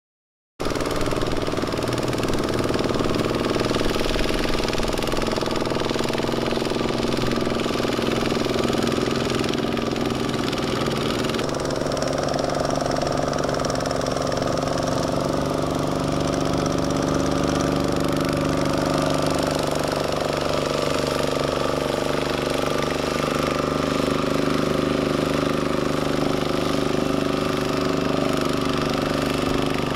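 Kubota single-cylinder diesel engine on a two-wheel walking tractor running steadily under load as it pulls a loaded trailer through a muddy rice field. The engine note changes abruptly about eleven seconds in.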